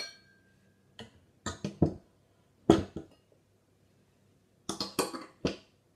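Cups being hung on metal cup hooks: a series of clinks and knocks, the first with a short ring after it, the loudest about three seconds in, and a quick cluster of knocks near the end.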